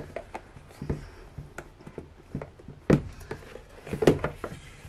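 A cardboard package box being handled and opened: light scrapes and rustles of cardboard with a few sharp knocks, the loudest about three and four seconds in.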